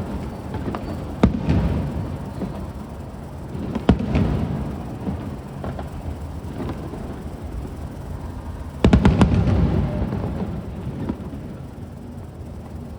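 Aerial fireworks shells bursting: a sharp bang about a second in, another near four seconds, and a quick cluster of several bangs around nine seconds, each trailing off in a long low rumble.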